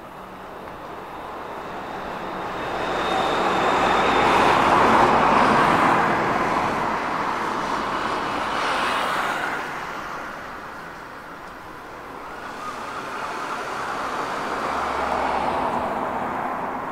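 Road traffic: cars passing on the street one after another, their tyre and engine noise swelling and fading, loudest about five seconds in, with further cars passing around nine seconds in and near the end.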